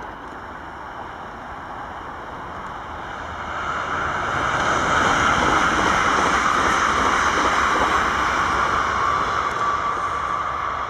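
NS Sprinter Lighttrain (SLT) electric multiple unit passing close by: the running and rolling noise builds from about three seconds in, is loudest midway, then eases off slightly.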